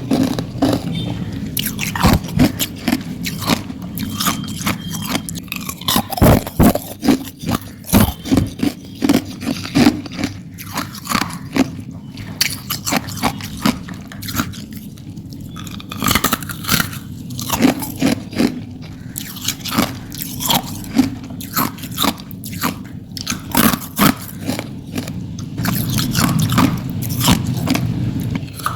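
A person biting and chewing hard ice close to the microphone: a long run of sharp, irregular cracking crunches, several a second at times, with brief pauses between bites.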